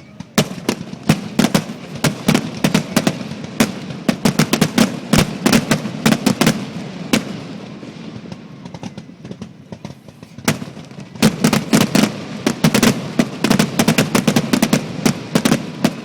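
Aerial fireworks going off in rapid volleys: dense runs of sharp crackling reports, with a brief lull in the middle before a second flurry.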